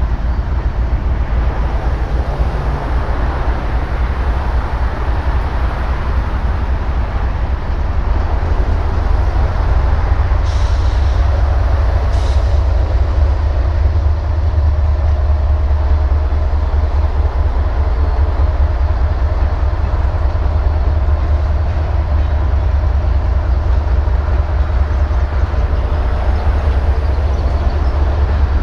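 Norfolk Southern freight train passing: the trailing diesel locomotive's engine goes by at the start, then tank cars and a covered hopper roll past on the rails with a steady, loud low rumble of wheels and couplers.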